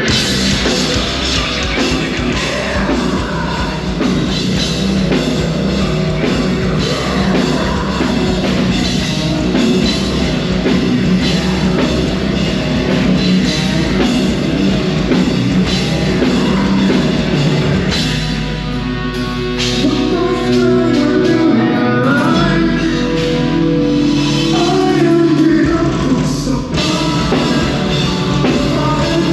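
Live heavy metal band playing loud: distorted guitars, bass, drum kit and a singing voice. About two-thirds of the way through, a deep bass note is held for several seconds with a short break in the middle.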